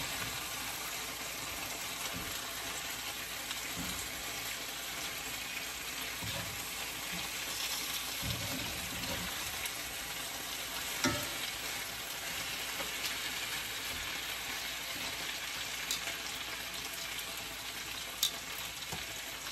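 Marinated oxtail pieces searing in hot oil in a cast iron skillet, a steady sizzle. A few sharp clicks of metal tongs against the pan, the clearest about 11 and 18 seconds in, as the pieces are flipped.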